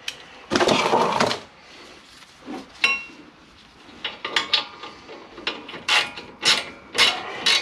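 Metal hand tools being handled while refitting a brake caliper. A rattling burst comes about half a second in, then a single ringing metal clink near three seconds. After that comes a run of short clicking scrapes about twice a second.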